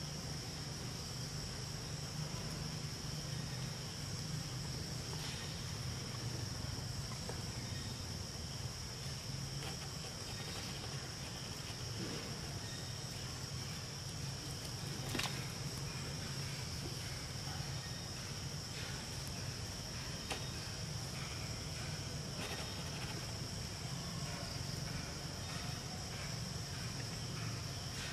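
Insects droning steadily in one continuous high-pitched tone, over a low, steady background rumble. A single sharp click sounds about halfway through.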